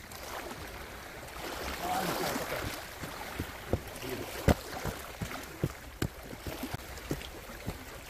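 Steady wash of sea water along a rocky shore. From about halfway through comes a run of sharp clicks and knocks, one much louder than the rest.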